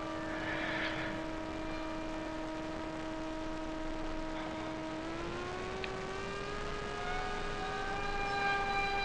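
Electric motor and propeller of a 6S-powered ZOHD Alpha Strike FPV flying wing in flight, a steady whine that rises in pitch about five seconds in as the throttle is opened and the plane speeds up.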